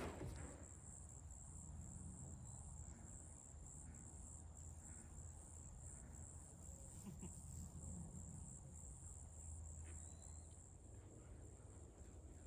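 Faint, steady high-pitched insect chorus with a soft pulsing trill, over a low steady hum.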